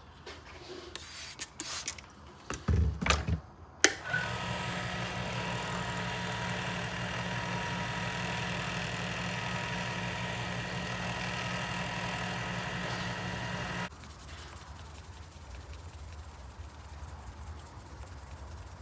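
Small lathe motor running with a steady hum while a micro-mesh pad rubs on the spinning resin pen blank, the final fine-grit sanding. Handling knocks come first, then a click about four seconds in as it starts, and it cuts off abruptly about fourteen seconds in.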